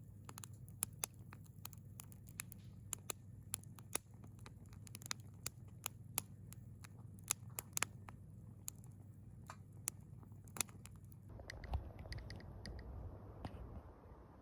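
Faint, irregular sharp crackles and clicks over a low steady hum; after about eleven seconds a soft rushing noise takes over and the clicks thin out.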